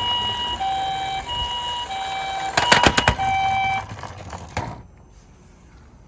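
Toy ambulance's electronic two-tone siren, alternating a high and a low note about every half second. A short burst of clattering knocks comes near the middle and is the loudest part. The siren stops about four seconds in, and a little rattling follows.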